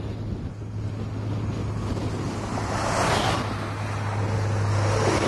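Wind buffeting the camera microphone, with a steady low hum underneath and two louder whooshing swells, about three seconds in and near the end.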